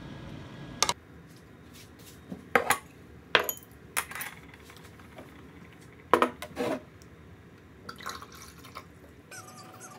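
Metal chopsticks and a spoon clinking against ceramic bowls as tableware is set out on a table: a series of sharp clinks spaced a second or so apart, then softer clatter near the end.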